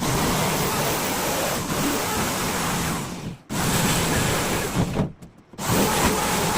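A power tool running with a steady, loud whirring noise, cut off abruptly twice, briefly each time.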